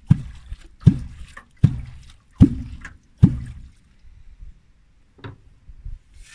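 Water slapping in a regular rhythm, a sharp splash about every 0.8 seconds, five in all, stopping about three and a half seconds in.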